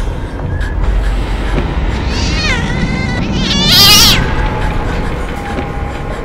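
A cat yowling twice over a steady low rumble: a wavering cry about two seconds in, then a louder, higher, shrieking one a second and a half later.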